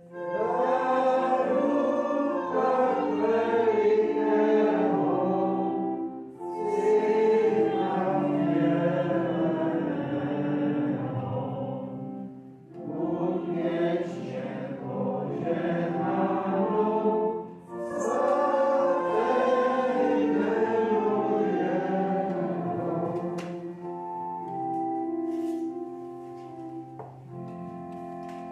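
A congregation singing a hymn together in phrases with short breaks between them, over instrumental accompaniment. About 24 seconds in the singing ends and the instrument plays on alone with held notes.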